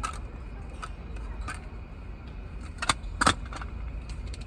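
Sharp plastic clicks and clacks from a car cassette deck being handled, with two louder clacks close together about three seconds in, over a low steady rumble.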